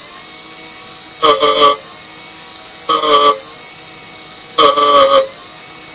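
Electric motor and freshly balanced propeller of a Mini Skyhunter RC plane idling, then revved in three short bursts, each about half a second, with a steady whine in between; the propeller has just been balanced to cure a strong imbalance.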